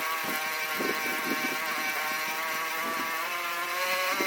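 A small engine running at a steady speed, an even drone that holds its pitch and dips slightly about three seconds in.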